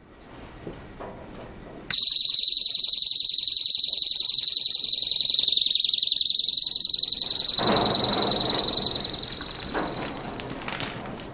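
Electronic buzzer alarm sounding: a loud, high, rasping tone that switches on about two seconds in, holds steady, then fades away over the last few seconds as lower rustling noise rises.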